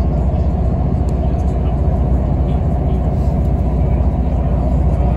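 Passenger train running at speed, heard from inside the carriage: a steady low rumble of wheels on rails and running gear, with no distinct clicks or joints.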